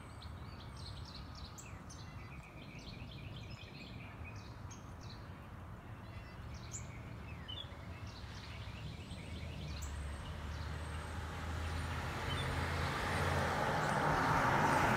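Small birds chirping in short high twitters through the first part, over a steady low outdoor rumble. From about two-thirds of the way in, a broad hiss swells steadily louder, like a vehicle approaching on the street.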